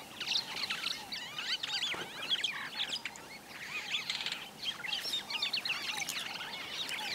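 Many birds calling at once: a dense chorus of short chirps and whistles that rise and fall in pitch, overlapping throughout.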